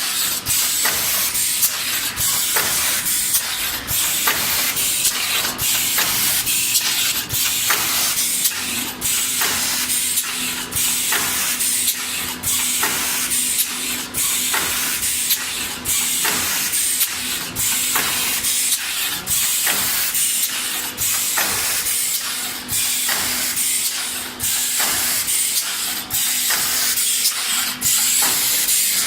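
Paper plate forming machine running: a steady hiss with a sharp click about twice a second as the press cycles.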